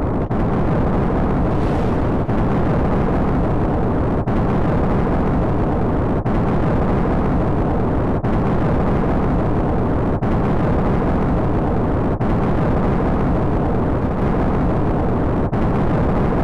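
Volcanic eruption sound effect: a steady, loud, deep rumble, with a brief break about every two seconds.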